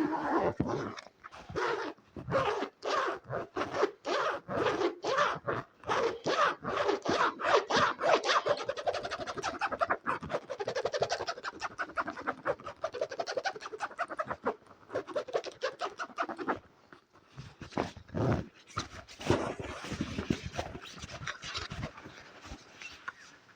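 Close-miked ASMR trigger sounds: quick repeated rubbing or scratching strokes a few times a second, which speed up into a dense fast scratching in the middle. After a short lull they start again.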